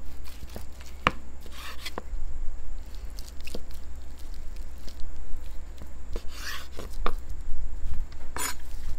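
Chef's knife slicing through smoked pork belly with a crusty bark, the blade knocking down onto a wooden cutting board several times. Between the knocks come a few short scraping strokes as the blade saws through the crust.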